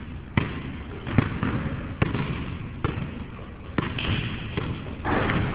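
Basketball being dribbled on a hard court: six sharp bounces, a little under a second apart.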